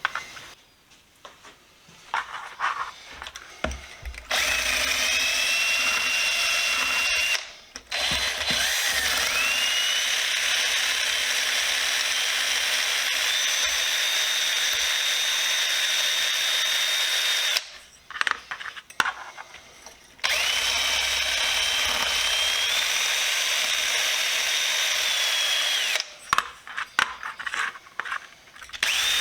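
A handheld power tool running in three long runs, its whine rising in pitch as it spins up each time, with a steady scraping hiss as it works on the metal socket holder. Light clicks and knocks of handling between the runs.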